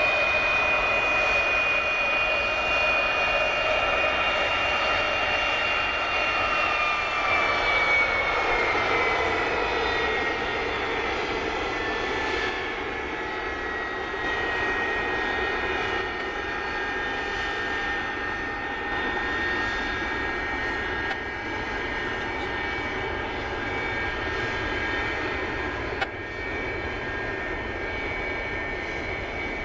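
Tupolev Tu-154 turbofan engines whining steadily as the airliner taxis. The high whine slides down in pitch about seven to ten seconds in, then holds level.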